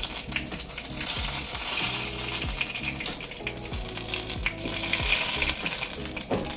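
Dumplings frying in hot oil, a steady sizzle with scattered light clicks and pops, over soft background music.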